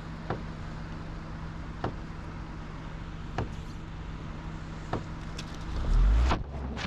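A car engine running, with a steady low hum and a soft knock about every second and a half. A loud low surge comes near the end.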